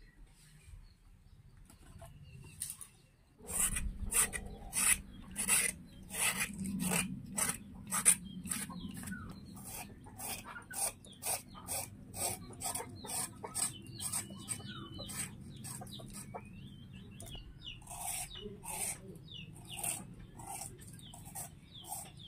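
Rhythmic scraping strokes, about two a second, starting a few seconds in and growing fainter near the end, with birds chirping faintly in the background.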